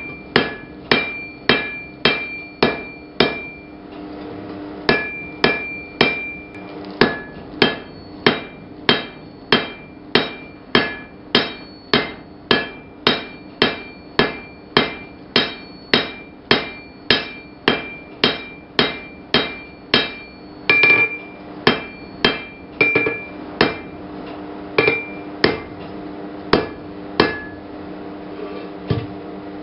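Blacksmith's hand hammer forging hot steel on an anvil: steady blows about two a second, each with a short metallic ring, broken by a few brief pauses.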